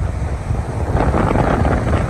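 Loud wind buffeting the microphone of a camera carried on a moving vehicle, a dense low rumble that swells about a second in.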